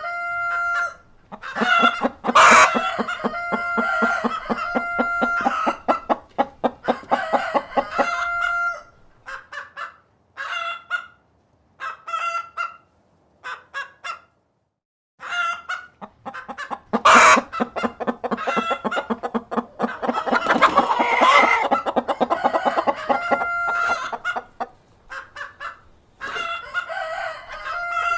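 Hens clucking in rapid runs while a cockerel crows with drawn-out pitched calls. A sharp knock cuts in twice, about two and a half seconds in and again around seventeen seconds.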